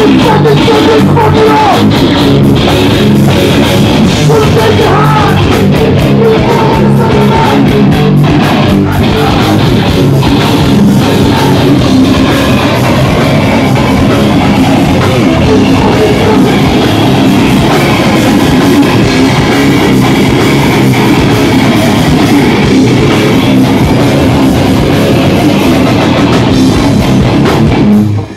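Hardcore punk band playing live and very loud: distorted electric guitars, bass and drum kit.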